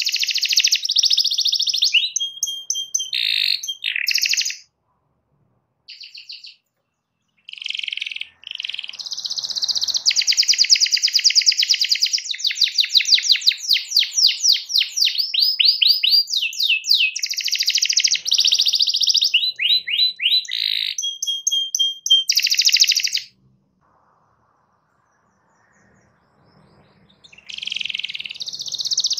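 Domestic canary singing: long phrases of fast repeated notes and rolling trills, broken by two silent pauses of about three seconds, one about five seconds in and one past twenty-three seconds, after which the song starts again.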